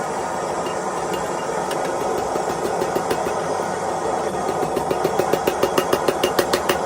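Steady rushing noise under hammer blows on metal. The blows start about four and a half seconds in and quicken to a rapid run of about five a second toward the end.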